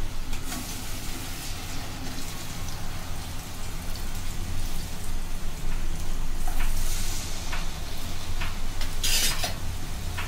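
Chaklis deep-frying in hot oil in a kadhai: steady sizzling and bubbling. In the second half a few short sharp clicks, the loudest near the end, fit a metal slotted spoon knocking against the pan as the chaklis are lifted out.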